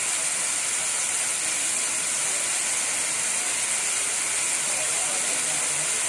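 Waterfall pouring into a pool: a steady, even rush of falling and splashing water with a bright hiss.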